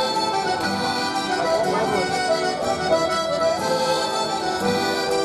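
Accordion music playing held chords and sustained notes.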